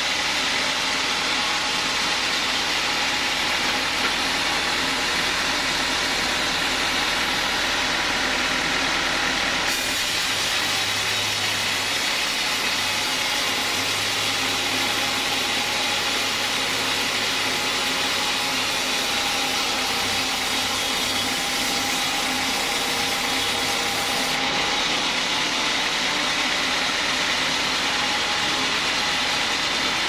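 Band sawmill running steadily, its wide steel blade sawing through a teak log. The machine's sound changes about ten seconds in and changes back some fifteen seconds later.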